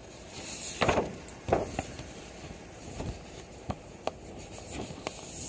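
Handling noise: scattered knocks, rubs and rustles as the recording phone is touched and moved, loudest about a second and a second and a half in.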